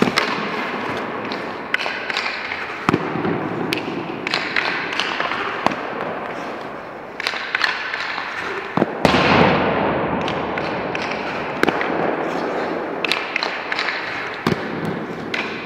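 Ice hockey goalie practice: sharp cracks and knocks of pucks being shot and hitting the goalie's pads, stick and boards, many times over a steady scraping hiss of skates on the ice, with a louder surge of scraping about nine seconds in.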